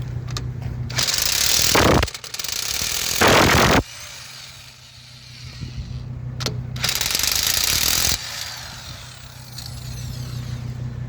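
Corded electric impact wrench hammering at a truck wheel's lug nuts in three bursts of one to two seconds, the first about a second in and the last near eight seconds, with a steady low hum underneath between bursts.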